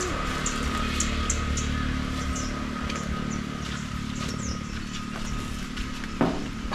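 A motor humming steadily, like an engine at idle, with a thin steady tone over it and scattered short high chirps.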